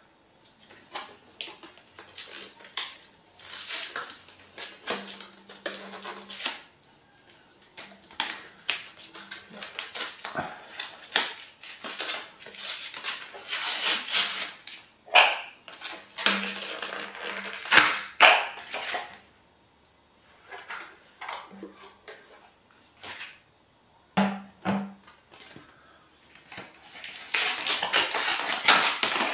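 Paper rustling and crinkling in irregular bursts as a paper label sheet is peeled off a plastic vacuum jug and folded, with a few light knocks from handling the jug.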